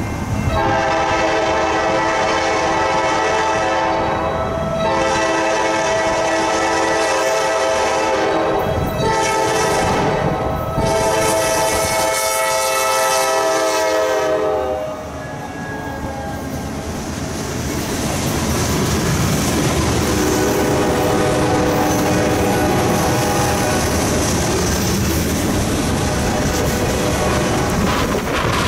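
Nathan K5LA five-chime air horn on an EMD GP38-2 locomotive sounding the grade-crossing pattern: two long blasts, a short one, and a long one, as the train comes up and passes. Then comes the rumble and clickety-clack of covered hopper cars rolling by, with the horn sounding again, fainter and lower, about two-thirds of the way in.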